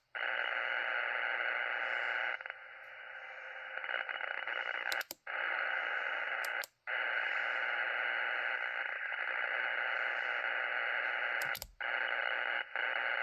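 Amateur radio receiver's speaker giving out a steady rushing hiss of interference, confined to the radio's voice passband. It weakens for a second or two early on and cuts out briefly several times with clicks. The noise is unexplained interference heard on many bands, which the operator wonders may be aurora.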